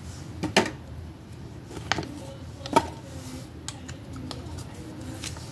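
Close handling noises: three sharp clicks about a second apart as a small sanding band is worked onto a nail-drill mandrel and a paper card is handled.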